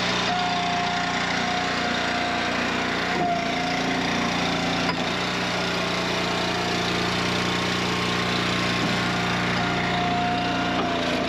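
Small gas engine of a hydraulic log splitter running steadily, with a higher whine that comes in and drops out several times.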